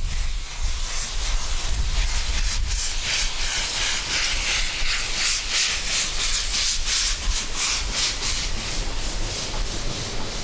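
Narrow-gauge 2-10-2 steam tank locomotive working hard as it pulls a train of coaches, its exhaust beating in a quick, even rhythm with a steam hiss and a low rumble underneath. The beats are loudest in the middle, then ease off slightly.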